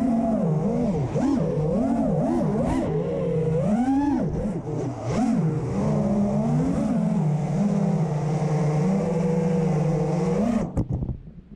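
A 5-inch FPV freestyle quadcopter's brushless motors and propellers whine, the pitch swooping up and down quickly with the throttle, then holding steadier for a few seconds. Near the end the motor sound cuts off suddenly with a couple of sharp knocks as the quad comes down.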